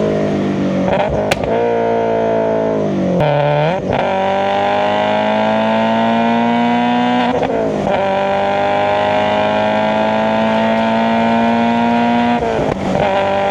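Subaru BRZ's FA20 flat-four breathing through SARD individual throttle bodies, driven under load. Its pitch climbs steadily in long pulls, broken sharply by gear changes about a second, three and a half, seven and a half and twelve and a half seconds in.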